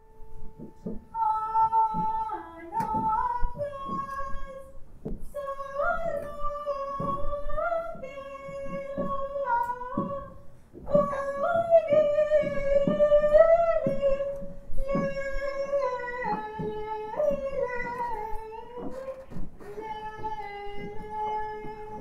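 A high solo voice singing a slow melody of long held notes, with piano accompaniment.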